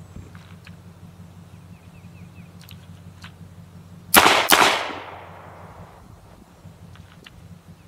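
Two quick shots from a Smith & Wesson M&P Shield 9mm pistol about four seconds in, a third of a second apart, each with a trailing echo.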